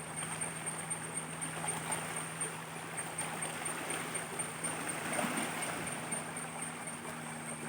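Freshwater stream running steadily over rocks, a continuous splashing and gurgling flow with no pauses.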